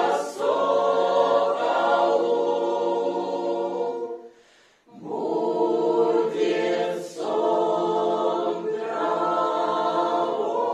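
Mixed choir of women's and men's voices singing a Russian song a cappella, holding long notes. The voices break off for a short breath about four seconds in, then come back in together.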